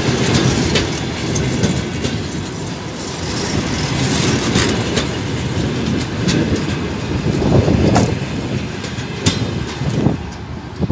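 Passenger train cars rolling past, a steady rumble of wheels on rail with irregular sharp clicks as the wheels cross rail joints.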